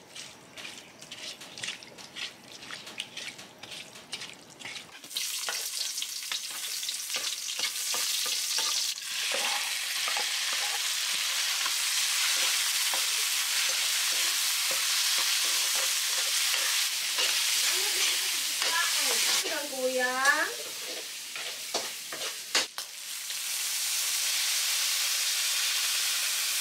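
Hands squishing and slapping raw chicken pieces in a marinade in a wooden bowl for the first few seconds. Then meat, onion and garlic sizzle loudly as they are stir-fried in a metal wok, with a spatula scraping and clicking against the pan. There is a brief squeak about twenty seconds in.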